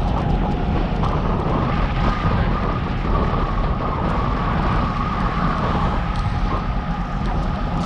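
Wind and road rush on the microphone of a camera riding along on a moving bicycle: a steady rush, heaviest at the low end, with a faint steady tone running through it.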